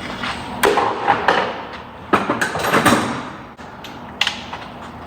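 A plastic engine-bay cover being worked loose and handled, giving a series of sharp clicks and knocks with some rattling, the last knock near the end.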